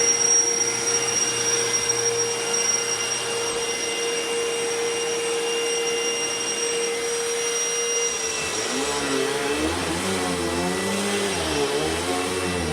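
Royal ProSeries Quick Rewind vacuum cleaner running with a steady motor whine. About two-thirds of the way in, its pitch begins to waver up and down, roughly once a second.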